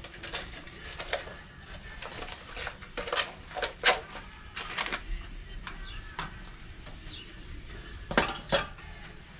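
Metal tools clinking and clanking against metal, a string of irregular knocks with the loudest about four seconds in and two close together just after eight seconds.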